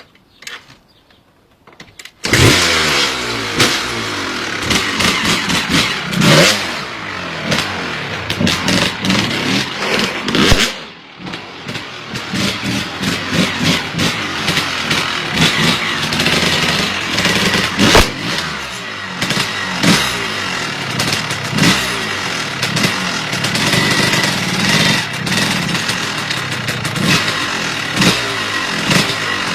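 Off-road motorcycle engine that comes in loud about two seconds in and is revved over and over, its pitch repeatedly rising and falling, with a brief drop about a third of the way through and a sharp crack a little past the middle.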